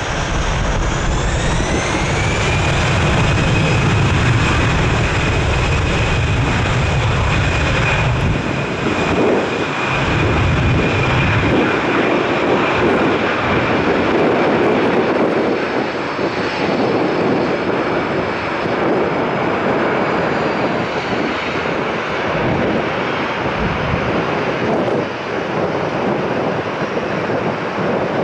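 Jet engines of an Airbus A320 airliner spooling up. A whine climbs in pitch over the first couple of seconds, then holds as a steady high whine over a deep rumble, and the whine slowly fades in the last third.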